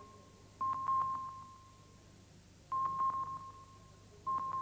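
Naval sonar pings: three pings about two seconds apart, each a single clear high tone that starts with a brief clicking and then fades away.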